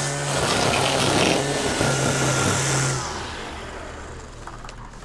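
String trimmer running at high speed as it cuts grass, then the throttle is let off about three seconds in and it drops to a faint low idle.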